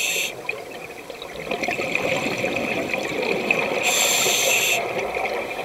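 Scuba regulator breathing heard underwater: a burst of exhaled bubbles ends just after the start, a quieter rushing stretch follows, and a second bubble burst comes about four seconds in.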